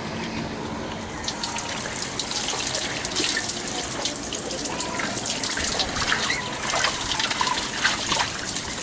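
Shower running, its spray splattering and hissing over a person standing under it; the spray gets noticeably louder about a second in.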